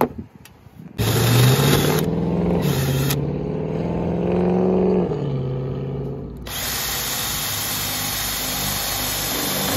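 Cordless drill boring a hole through the van's roof with a twist drill bit. The motor starts about a second in and runs steadily, its pitch shifting as the bit bites, with bursts of harsh cutting noise that are strongest over the last three seconds.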